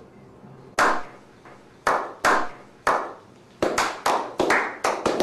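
A slow clap from a small group clapping in unison: single hand claps about a second apart at first, quickening to several claps a second near the end.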